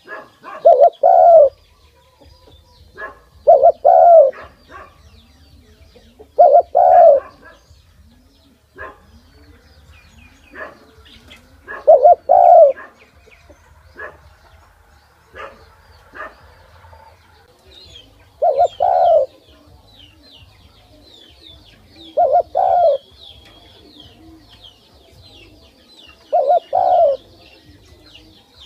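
Spotted dove cooing, a close pair of low coos repeated every three to six seconds, about seven times.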